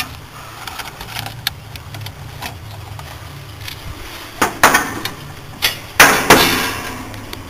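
Sharp metal knocks and clanks from an air-conditioning condensing unit being pulled apart for scrap, the loudest about four and a half seconds in and again near six seconds, the last trailing off in a brief rattle. A steady low hum runs underneath.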